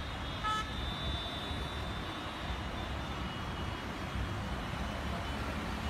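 Distant road traffic: a steady low rumble, with a faint thin high tone running above it.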